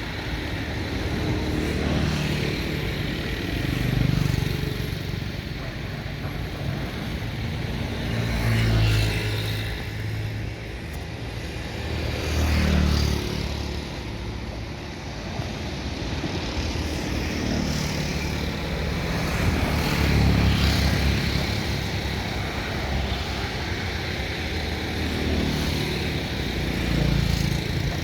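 Excavator's diesel engine working, its note rising and falling every few seconds as it takes load.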